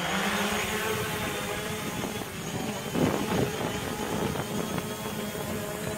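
DJI Mavic Pro quadcopter's propellers rising in pitch as it lifts off, then holding a steady buzzing hum as it hovers. A brief louder rush of noise about three seconds in.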